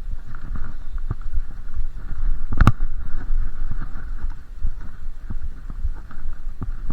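Mountain bike riding down a dirt trail: steady rumble of tyres over rough ground and the bike rattling over bumps, with one sharp knock a little under three seconds in.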